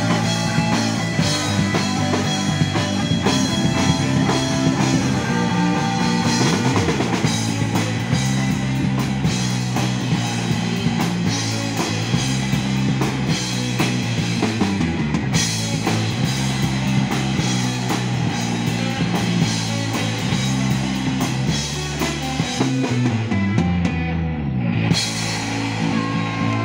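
A live rock band playing: two electric guitars, bass guitar and a drum kit. Near the end the high cymbal wash drops out.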